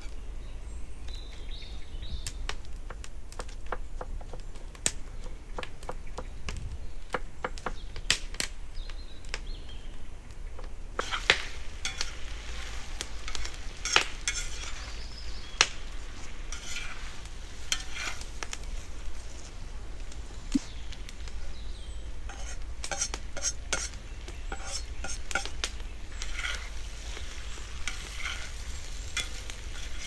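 Meat and vegetables frying in a saj pan, with a metal utensil stirring and clinking against the pan. The sizzling becomes much louder about a third of the way in.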